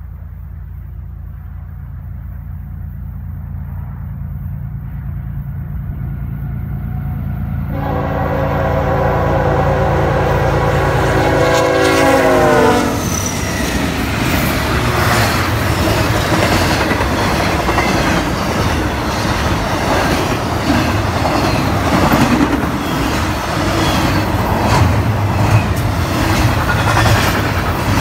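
A Norfolk Southern train approaches with a growing low rumble, then sounds a crackling horn for about four seconds whose pitch drops as the locomotive passes close by. The cars follow with a loud, continuous clatter of wheels on the rails.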